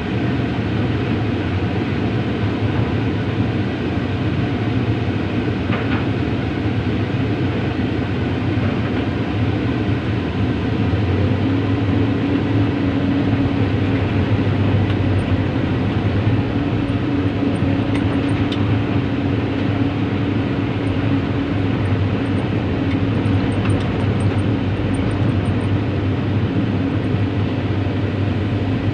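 Diesel engine of heavy tracked construction machinery running steadily under load while moving, with a higher steady tone joining about twelve seconds in.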